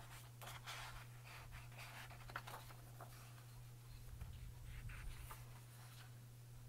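Pages of a large photo book being turned by hand: several faint paper rustles and flips, over a low steady hum.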